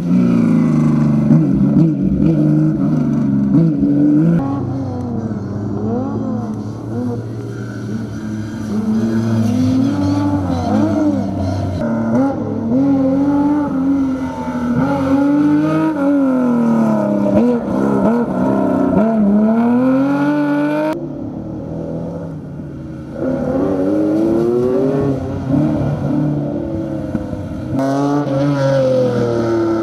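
Classic rally car engines revving hard and changing gear, the pitch climbing and dropping again and again as the cars are driven at racing speed. The sound changes abruptly a few times, about four, twenty-one and twenty-eight seconds in.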